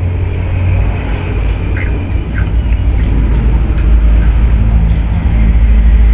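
A loud, steady low rumble, with a few faint crunches of chewing on crunchy chocolate spread mixed in.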